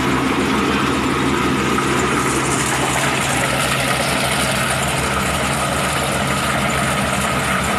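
Engine of a rice harvesting machine running steadily at a constant speed, with a low even hum and a fast, regular pulse.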